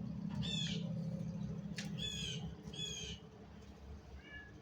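Four short, high-pitched animal calls, the last one faint, over a steady low hum that drops away partway through.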